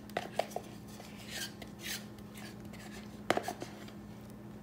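Plastic cottage cheese tub knocking and scraping against a glass mixing bowl as cottage cheese is emptied in: scattered light taps and a couple of soft scrapes, with one sharper clack about three seconds in, over a low steady hum.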